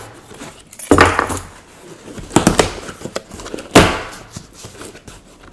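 Cardboard shipping box being opened by hand, its packing tape slit and its flaps pulled open: three separate loud scraping, tearing noises, about a second in, around two and a half seconds in, and near four seconds in.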